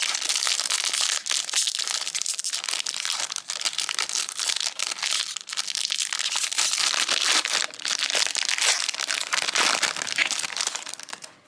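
Plastic wrapper of a trading-card pack being torn open and crumpled in the hands: a continuous, loud crinkling and crackling that dies away at the end.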